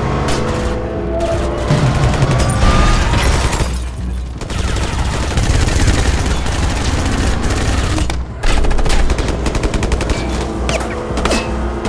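Film soundtrack of a shootout: rapid volleys of automatic gunfire and shots hitting an armoured SUV, with music under them. The firing dips briefly about four seconds in and comes back hard about eight and a half seconds in.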